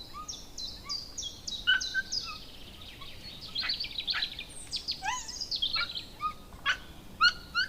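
Several birds chirping and whistling: a quick run of about eight high notes stepping downward in the first two seconds, then many short chirps and rising whistles from different birds, the sharpest near the end.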